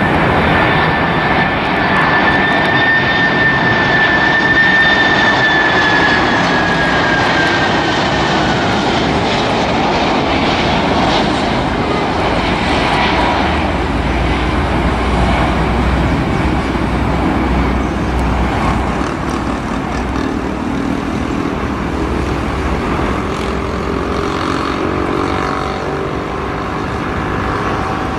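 Boeing 767 airliner's jet engines on final approach: a steady loud rush with a high whine that drops in pitch about six to eight seconds in as the plane passes, and a deeper rumble in the second half.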